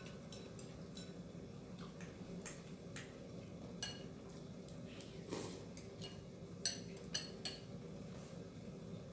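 Chopsticks and a ceramic soup spoon clinking lightly against a bowl during eating, scattered soft clinks with a few sharper ones about seven seconds in, over a low steady hum.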